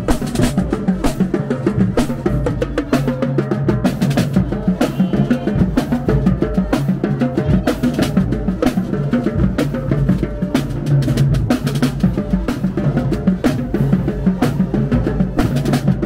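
High school marching band playing a song on the march. The snare and bass drums of the drumline are loudest, over sousaphones and horns.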